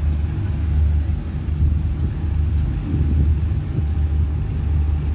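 Steady low rumble of a running motor vehicle engine, with an even drone.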